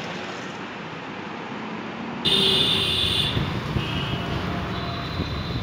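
Steady city road traffic noise. About two seconds in, a loud high-pitched tone sounds for about a second, followed by shorter, fainter high tones.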